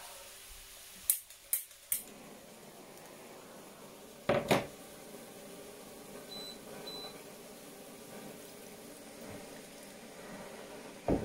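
Handheld gas blowtorch being lit: three sharp igniter clicks about a second in, a louder rush around four seconds as it lights, then the flame hissing steadily over port bubbling in a frying pan. Two short high beeps come midway, and there is a thump near the end.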